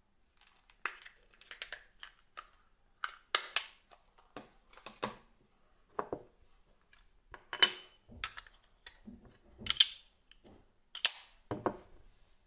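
Handling clicks and knocks as a green 18650-size battery is fitted into a small plastic box mod and its battery cover is snapped shut. The mod is then knocked against a wooden table. The sounds come as a series of short, sharp clicks, and the loudest fall about 8 and 10 seconds in.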